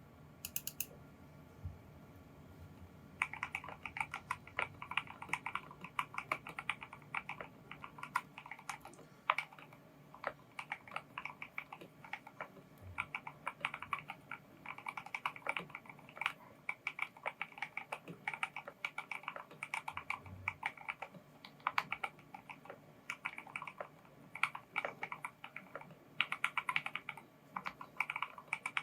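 Typing sound test on a KBD67 Lite R2 custom 65% mechanical keyboard with Gateron Ink Black linear switches, lubed with Krytox 205g0 and filmed, and lubed screw-in stabilizers. After about three quiet seconds, a steady run of fast, uneven keystroke clicks comes in bursts and keeps going.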